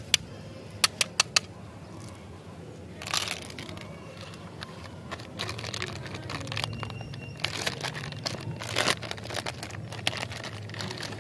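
A few sharp clicks in the first second and a half as small hard candy balls are tipped out of a plastic tube into a hand. Over the second half, the plastic wrapper of a Rio chocolate snack cake crinkles and crackles as it is handled and torn open.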